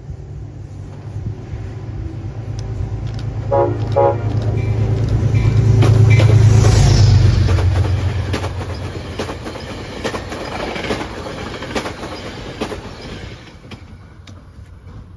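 Metro-North commuter train passing through a station. It gives two short horn toots as it approaches, then a deep rumble builds to a peak as the cars go by, with rapid clicking of wheels over rail joints, and dies away near the end.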